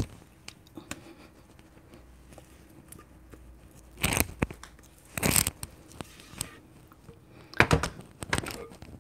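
Spatula scraping thick cake batter out of a glass mixing bowl, in three short bouts of scraping: about four seconds in, about five seconds in, and a longer one near the end.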